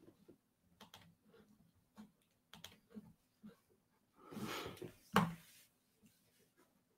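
Faint scattered clicking and tapping on a computer keyboard and mouse, with a louder rustling noise and then one sharp knock about four and a half to five seconds in.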